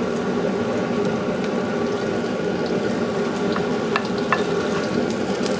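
Garlic and ginger sizzling in hot canola oil in a wok on high heat, a steady frying hiss over a faint hum. A few light clicks of the stirring utensil on the pan come about four seconds in.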